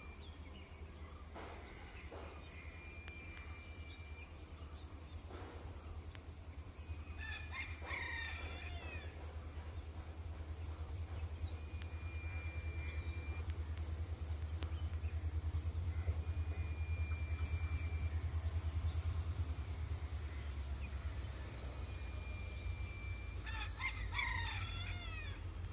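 A rooster crowing twice, about eight seconds in and again near the end, over a low steady rumble from a distant approaching EMD diesel locomotive that swells through the middle. A small bird gives short, evenly pitched whistle notes now and then.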